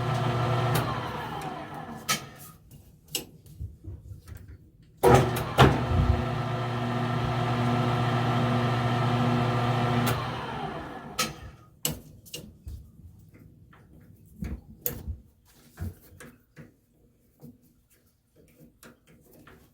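Metal lathe spindle motor power-tapping a spacer pin on slow-speed jog: it runs with a steady hum and winds down about a second in. It starts again sharply about five seconds in, runs steadily for about five seconds and winds down again. Scattered light clicks and knocks of tools on metal follow.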